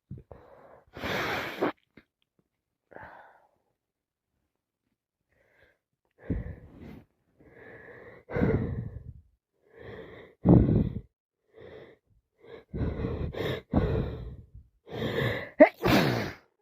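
A person with a cold taking gasping, wheezy breaths and sneezing several times: one breathy burst about a second in, then a run of gasps and sneezes from about six seconds on, the loudest near the end.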